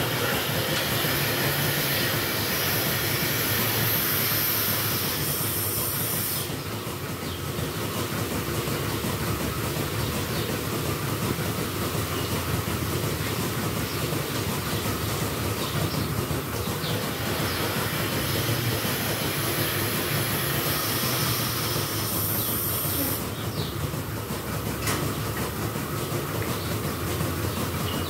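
Dairy milking-shed machinery running steadily with a continuous rumbling clatter, and a strong hiss that cuts out about six seconds in and comes back for a few seconds near the end.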